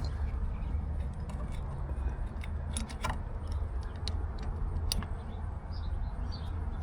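A few light metallic clicks as small screws and mounting hardware are handled and fitted to a light housing, over a steady low rumble.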